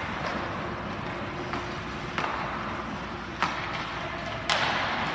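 Ice hockey play in an indoor rink: a steady scrape of skates on the ice, broken by three sharp knocks of stick, puck and boards, each with a short echo. The loudest knock comes near the end.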